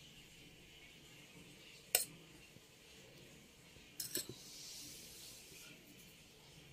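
Light clinks of a steel spoon against stainless steel bowls and plates: one sharp clink about two seconds in, then two or three more together about four seconds in, over a faint hiss.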